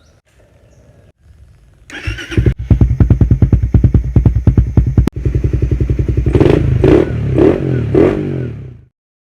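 A Suzuki Raider 150 Fi's single-cylinder four-stroke engine starts about two seconds in and idles with an even pulse. Near the end it is given four quick blips of the throttle about half a second apart, and then the sound cuts off suddenly.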